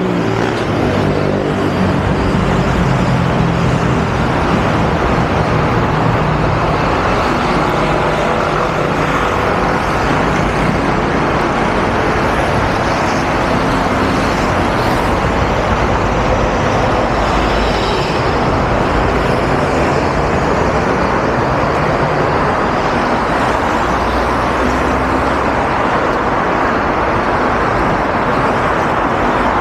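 Steady city road traffic: cars and other motor vehicles running along a multi-lane avenue, a continuous noise of engines and tyres.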